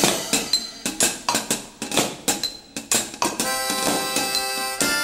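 Instrumental band music with no vocal: a drum kit with cymbals plays a beat, then a harmonica comes in about three and a half seconds in, holding sustained chords over the drums.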